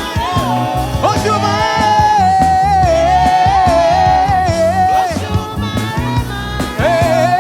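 Live gospel praise band playing with a lead singer holding one long, wavering note for several seconds over bass and drums.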